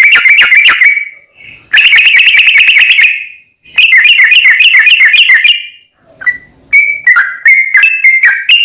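Yellow-vented bulbul (trucuk) song used as a lure track: loud phrases of rapid, chattering whistled notes. There are three bursts of one to two seconds each with short pauses between them, then a looser run of separate notes from about seven seconds in.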